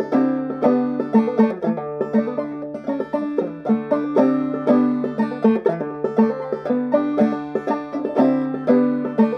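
Banjo played clawhammer style with a brass thimble striking the steel strings: a steady, rhythmic stream of plucked notes ringing over a held low note.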